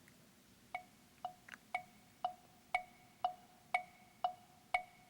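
Clock ticking, a cartoon tick-tock: even ticks two a second, starting about three-quarters of a second in, every other tick with a brighter, higher ring.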